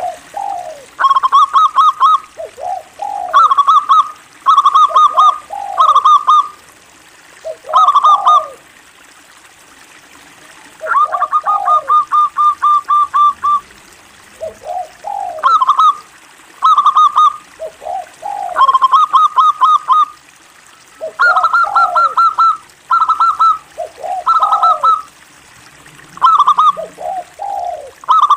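Zebra dove (local perkutut) calling over and over: each phrase is a dipping note and a quick run of short staccato coos. The phrases come every second or two, with one longer run about eleven seconds in.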